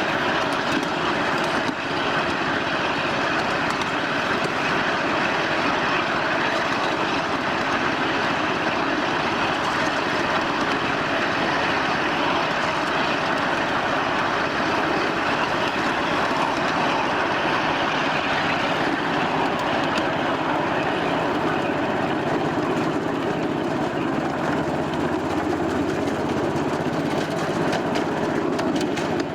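Steady running noise of a 1/8-scale miniature railway train under way, its wheels rolling on the rails, heard from aboard.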